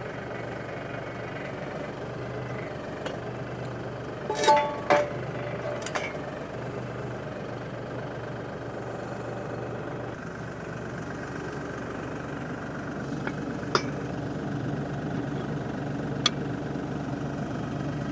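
Compact diesel tractor engine idling steadily while the three-point hitch lift raises the lower links, with a few sharp metallic knocks, the loudest two about four and a half seconds in; the engine's low hum gets a little heavier about ten seconds in.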